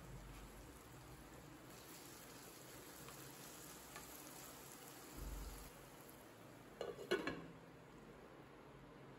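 Chopped vegetables sizzling faintly in a nonstick kadai with a little water added, stirred with a wooden spatula. About seven seconds in, a glass lid clinks several times as it is set onto the pan.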